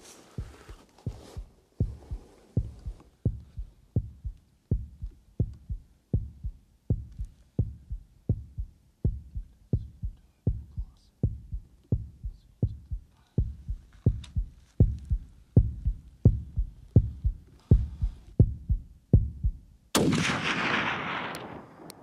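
Steady heartbeat sound effect of evenly spaced low thumps, then near the end a single loud rifle shot whose report rolls away over about two seconds.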